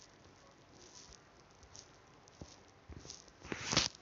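Quiet room noise with a few faint small clicks, then a short burst of noise about three and a half seconds in.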